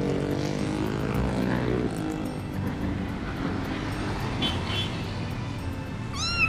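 Steady motor drone of a small remote-control toy car driving, with a short high squeal that rises and falls near the end.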